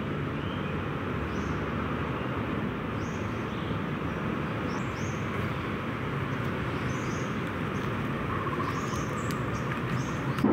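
A steady rushing noise with short high chirps scattered through it, coming more often in the second half.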